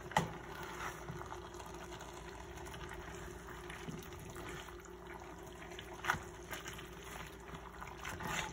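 Fettuccine in a creamy sauce being stirred and tossed with a wooden spoon and a pasta server in a stainless pot: wet sloshing, with a few knocks and scrapes of the utensils against the pot, the clearest about six seconds in and near the end, over a steady hum.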